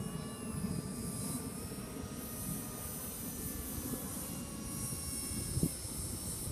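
Electric ducted fan of a Freewing 64mm F-105 Thunderchief foam RC jet whining in flight on its landing approach, the pitch drifting slowly with the throttle over a low rumble. A brief knock about five and a half seconds in.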